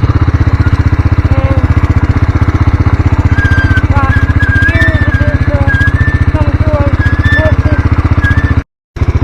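An engine running steadily and loudly with a fast, even firing beat. The sound drops out completely for a moment near the end.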